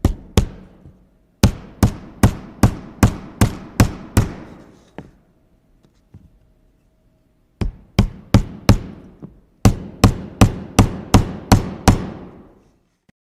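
Hammer blows during indoor construction work: sharp, ringing strikes at about two to three a second, in runs of several blows broken by pauses of a second to a few seconds.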